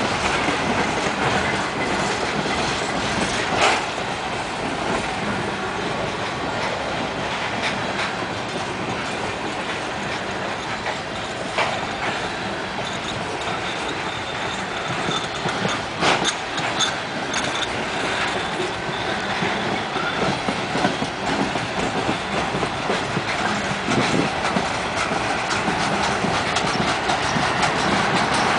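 Freight train of boxcars rolling past, a steady rumble and rattle of steel wheels on the rails. Now and then a sharp clank sounds as wheels cross rail joints.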